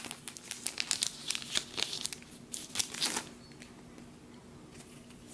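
Hands handling a white paper envelope of merchandise cards: a run of rustles and crackles for about three seconds, fading out after that.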